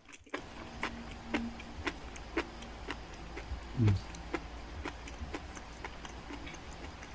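Close-miked chewing of a burger: a run of wet mouth clicks about every half second, with one brief, louder low sound that falls in pitch about four seconds in.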